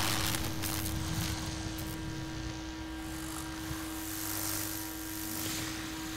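Electrical streetlight buzzing with a steady hum, over a low rumble, as the tail of a loud crackling electrical blast fades away in the first second or two.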